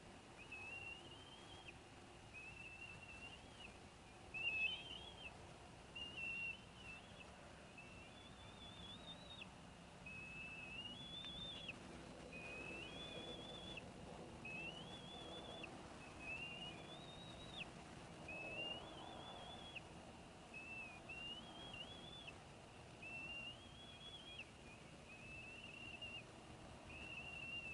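Faint high whistled bird calls repeating about every two seconds. Each call lasts about a second, rising into a wavering held note before dropping off.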